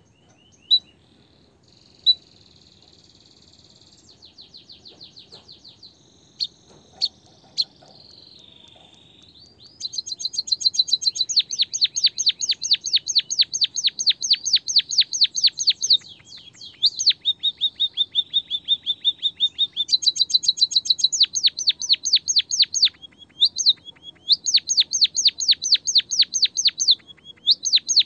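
Songbird song: a few faint single chirps and a short trill in the first half, then from about ten seconds in a loud, fast run of repeated chirping notes, about five a second, broken by short pauses.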